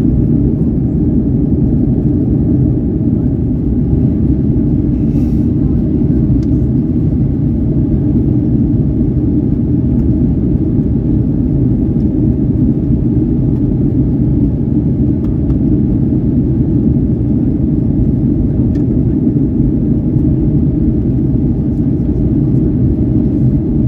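Steady cabin noise of a Boeing 737-900ER climbing after takeoff: a deep, even rumble from its CFM56-7B engines and the airflow, heard inside the cabin from a window seat by the wing.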